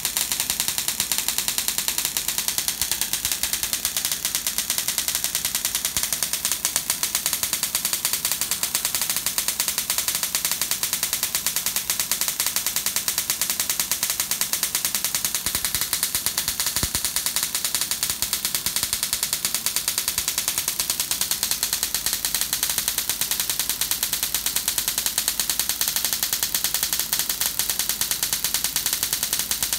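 Spark gaps of a high-voltage supply firing continuously, the rapid discharges merging into a steady crackling buzz.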